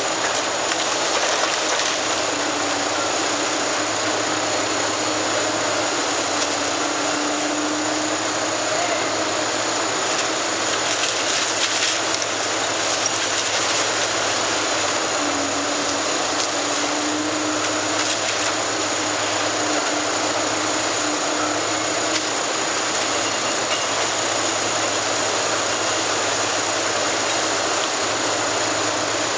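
Liebherr tracked excavator running steadily under load as its arm tears into a building, with continuous crunching and clattering of falling masonry rubble mixed into the engine noise.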